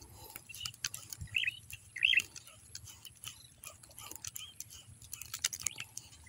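Small birds chirping, with two short clear chirps about a second and a half and two seconds in and a few fainter ones after, over scattered light clicks.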